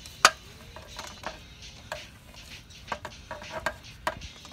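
A golf club strikes a golf ball once with a sharp click about a quarter second in, followed by several fainter scattered ticks.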